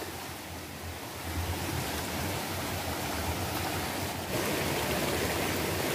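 Shallow rocky stream rushing over stones: a steady water noise that grows fuller about four seconds in.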